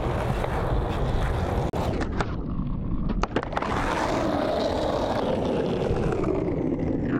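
Skateboard wheels rolling over rough concrete with a steady rumble, broken by several sharp clacks of the board between about two and three and a half seconds in.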